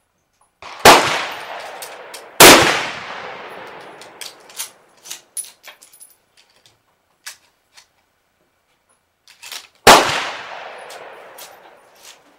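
Three shots from an M1903A3 Springfield .30-06 bolt-action rifle: two about a second and a half apart, then a third some seven seconds later. Each shot echoes away over about two seconds, and light clicks and clinks come between the shots.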